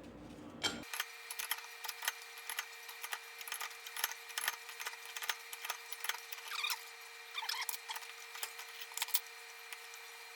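A hand threading die turned with an extended handle, cutting threads on a metal spark plug insert: irregular clicks and creaks as the die bites, with a few short squeaks around the middle, over a faint steady hum.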